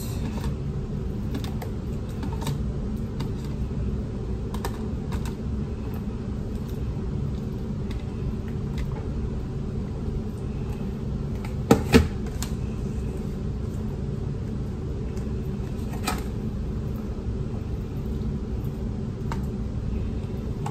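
Light clicks and taps of scooping leftover pasta from one plastic food container into another, over a steady low hum. Two sharp knocks come close together about twelve seconds in, and another click about four seconds later.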